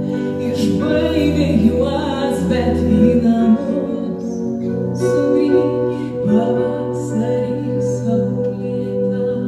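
A woman singing a slow song with keyboard accompaniment, holding long notes over sustained chords.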